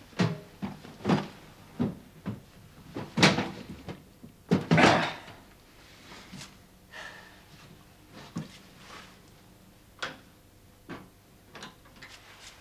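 A string of knocks and clunks from things being handled and shifted in a small room, the loudest about three seconds in and a longer scraping clunk about five seconds in, then fainter, scattered taps.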